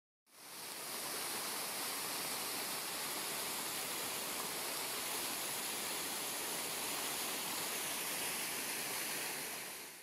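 Waterfall on a mountain stream, water rushing steadily. It fades in just after the start and fades out at the end.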